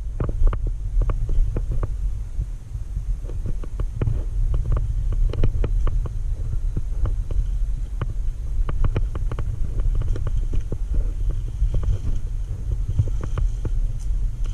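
Steady low rumble with many irregular short clicks and knocks scattered throughout.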